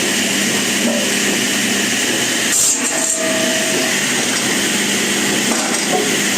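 Motor-driven wood saw running steadily as it cuts wood, with a faint low hum under the cutting noise and a brief louder moment about two and a half seconds in.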